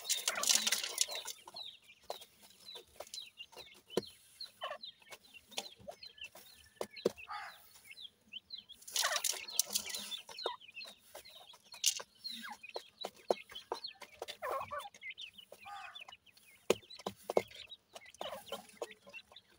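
Young francolin (teetar) chicks calling with many short, high chirps, over sharp clicks and rustling from pecking and scratching in gravel. Two louder bursts of rustling come at the start and about halfway.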